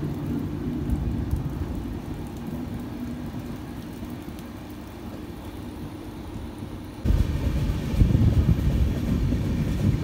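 Passenger train running on the track: a steady low rumble that slowly fades, then turns abruptly louder about seven seconds in.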